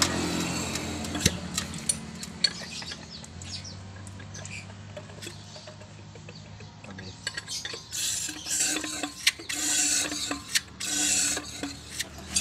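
Yamaha F1ZR's two-stroke single-cylinder engine running with a clicking, rattling mechanical noise, the knock its owner calls 'ngorok' (snoring). In the last few seconds louder hissy surges come about once a second.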